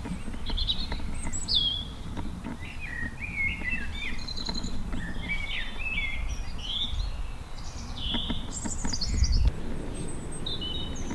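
Small songbirds chirping and twittering in quick, varied notes over a steady low rumble.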